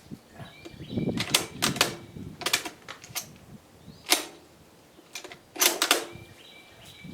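Sharp metallic clicks and clacks of a Dutch Beaumont bolt-action rifle's action being worked by hand, in several short clusters about a second in, around two and a half seconds, at four seconds and near six seconds.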